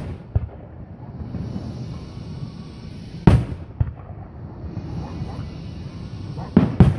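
Aerial firework shells bursting with sharp booms: one loud burst about three seconds in and two loud ones close together near the end, with smaller pops between.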